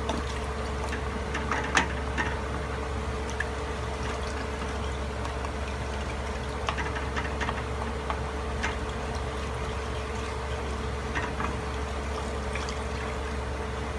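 Wooden spatula stirring soy-sauce-based sauce liquid in a metal pot, the liquid sloshing, with scattered light knocks of the spatula against the pot. A steady hiss and hum run underneath.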